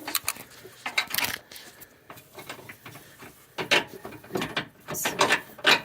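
Metal clicking and clanking as a new track bar and its bolts are worked into the mounts on a 2008 Jeep Wrangler. It comes in two bursts: a short one near the start and a longer one from about three and a half seconds in.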